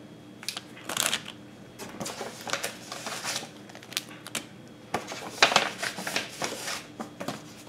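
Intermittent rustling and crinkling of a paper mailing envelope and clear plastic sticker packets as they are handled and laid down on a table, with louder bursts about a second in and again around five to six seconds in.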